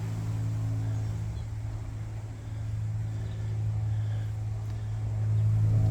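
A steady low mechanical hum with a few overtones, like a motor running, growing a little louder near the end.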